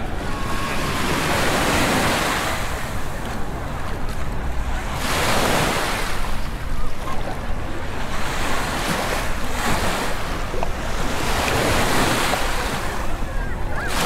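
Small Mediterranean waves washing onto a sandy shore, the surf swelling and fading every few seconds, with a steady low rumble of wind on the microphone.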